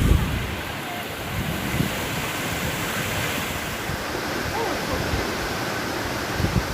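Waterfall's falling water rushing steadily, with wind buffeting the microphone at the start and again near the end.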